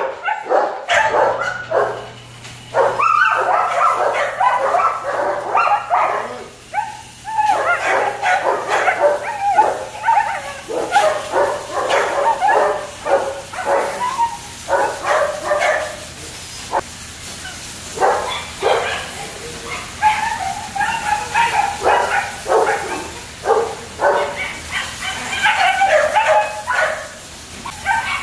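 German shepherd puppies barking and yipping: many short, high calls in quick succession, often overlapping.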